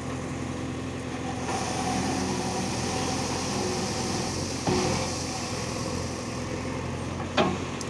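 JCB 3DX backhoe loader's diesel engine running steadily while the backhoe arm digs. A hiss joins about one and a half seconds in, and two sharp knocks come past the middle and near the end.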